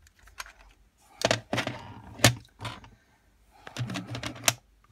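Clear plastic box being opened and handled: two clusters of sharp plastic clicks and knocks, the first about a second in and the second near the end.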